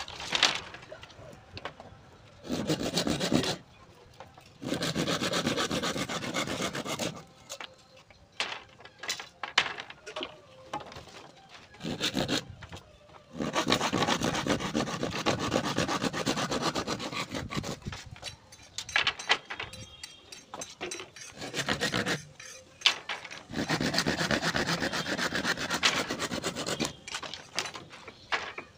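Bamboo being cut by hand with a curved blade: rasping, sawing strokes in runs of a few seconds, with knocks and taps in the pauses between them.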